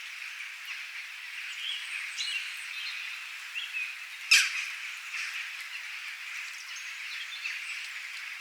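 Wild birds chirping in short, scattered calls over a steady high-pitched background chorus. A single sudden, sharp sound about four seconds in stands out as the loudest moment.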